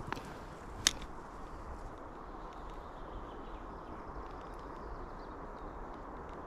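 Steady rush of a small river's flowing water, with one sharp click about a second in.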